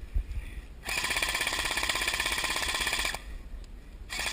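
Airsoft electric gun firing a long full-auto burst, a rapid even rattle of shots with a motor whine, starting about a second in and stopping suddenly after about two seconds; another burst begins right at the end.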